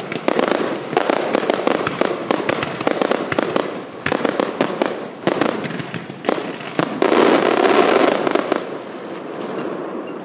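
Aerial fireworks going off in a dense, rapid barrage of bangs and crackling. The barrage peaks about seven seconds in, then thins out and fades near the end.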